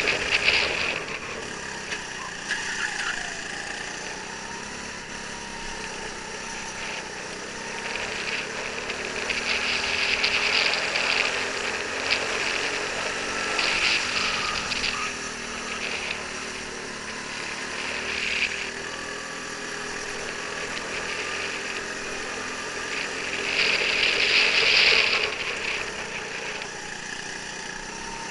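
Go-kart engine running under the onboard camera, its pitch rising and falling as the kart speeds up and slows through the corners, over a steady rushing noise. Louder hissy surges come and go a few times.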